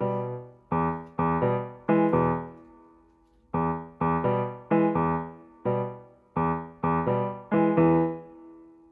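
Background music: a piano playing gentle chords, each struck and left to fade, with one chord held and dying away about two to three seconds in before the playing resumes.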